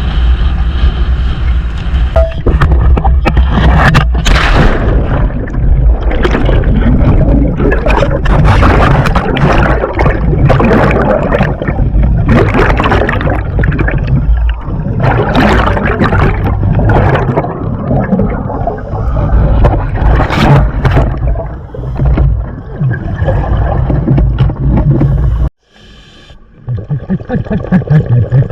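Dive boat's engine running under way, with gusts of wind buffeting the microphone and water noise as the boat crosses choppy water. About three seconds before the end the sound cuts off abruptly and gives way to quieter gurgling.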